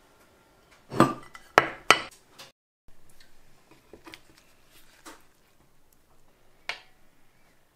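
Ceramic dishes knocking and clattering against the table and each other: three loud knocks about one to two seconds in, then quieter rustling as food is handled, and one more small knock near the end.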